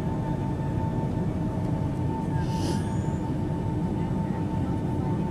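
Boeing 757-200 cabin noise while taxiing after landing: a steady low engine and airframe rumble with a thin steady whine, and a brief hiss about halfway through.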